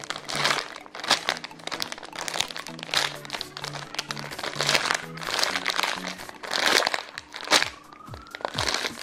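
Clear plastic bag crinkling again and again as hands squeeze a Silly Squishies Pop Tart squishy through it, over background music.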